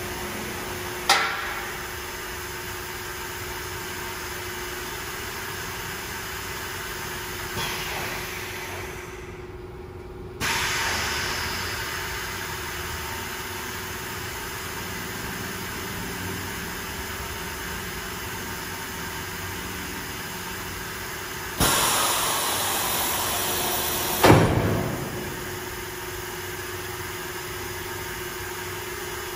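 Industrial vacuum-forming machine running through a cycle: a steady machine hum with a sharp pneumatic clunk about a second in, a sudden rise in hiss around ten seconds in, and a loud rush of air lasting a few seconds that ends in a loud clunk as the platen with the mold rises.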